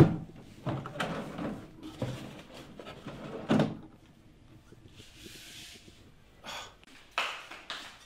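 A wooden desk drawer being opened with a sharp knock, then several softer knocks and rustles as things in and around it are handled.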